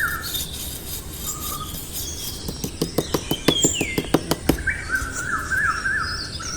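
Birds chirping and trilling in warbling phrases, with a quick run of sharp clicks or taps in the middle.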